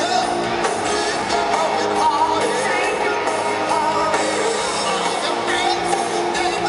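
Rock band playing live: electric guitars, drums and sung vocals, heard through arena echo as recorded from the audience.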